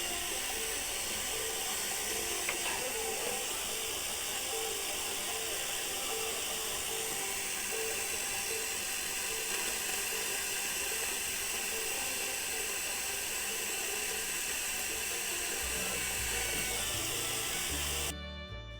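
Small Sony Walkman radio's speaker hissing with static, a steady hiss with a faint regular pulse about once every half second or so. Background music with violin cuts in just before the end.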